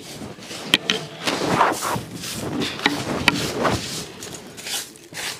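Hand broom sweeping a dusty earth floor: a run of short, scratchy swishing strokes, about one to two a second, some with a sharper scrape.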